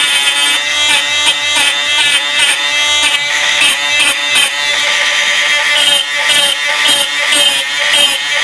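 A cordless random orbital sander runs steadily against the plastic-coated edge of a small sensor plate, sanding it back. Its motor whine wavers in pitch as the pad is pressed and moved.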